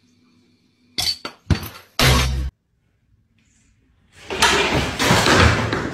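A few sharp knocks and a heavy thump, then a loud, long, noisy clatter of household objects.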